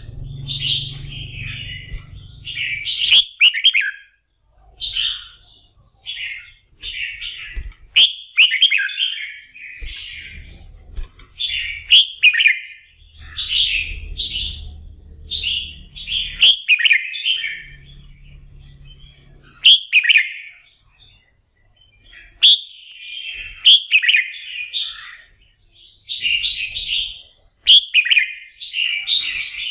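Red-whiskered bulbul singing: short, bright warbled phrases repeated every second or so with brief pauses, and sharp clicks among some of the phrases.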